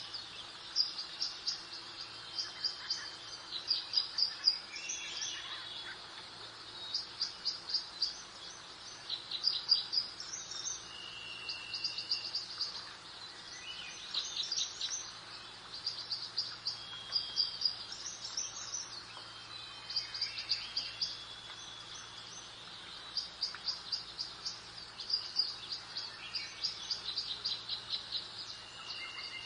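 Songbirds singing: rapid high trills repeated every second or two, mixed with short whistled notes, over a faint steady background hiss and low hum.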